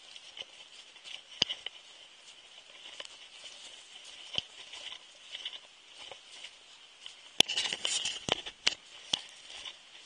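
Footsteps crunching in snow, uneven step after step, with a few sharp clicks and a louder burst of crunching about seven and a half seconds in.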